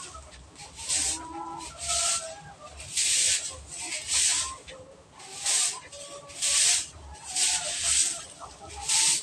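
A stiff-bristled broom sweeping a concrete floor in short strokes, about one scratchy swish a second, roughly ten in all.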